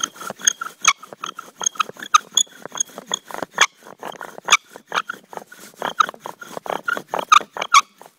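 Bow drill in use: a willow spindle squeaking and grinding in its hearth-board socket with each stroke of the bow, a steady rhythm of about two squeaky strokes a second.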